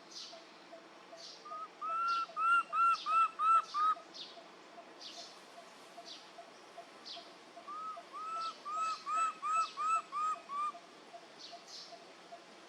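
A bird calling in two runs of about seven short, clear, evenly spaced notes, a few seconds apart, over a steady fast insect pulsing and repeated short high chirps.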